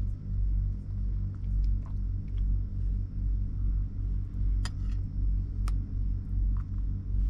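Idling truck diesel engine: a low, steady drone that throbs about one and a half times a second. A metal spoon clinks against the soup bowl twice, about two-thirds of the way in.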